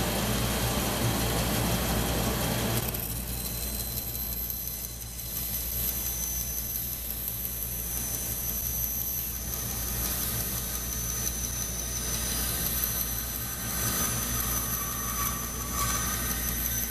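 Grizzly band saw running steadily, its motor giving an even hum with a few fixed high tones, while a thin strip of wood is fed through the blade. A light cutting sound joins in about two-thirds of the way through.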